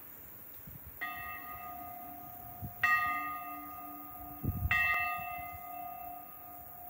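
A church bell in a stone bell gable struck three times, about two seconds apart, each stroke ringing on into the next. There is a brief low rumble just before the third stroke.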